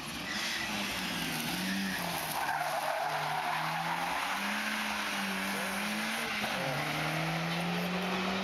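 Car engine working hard through an autoslalom course, its note rising and falling with throttle and gear changes and dropping sharply near the end. Tyres squeal as the car slides through a turn a couple of seconds in.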